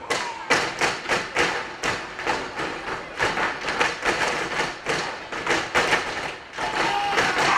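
Zapateado footwork: a group of folk dancers' boots stamping on the stage in a quick run of sharp strikes, about five a second.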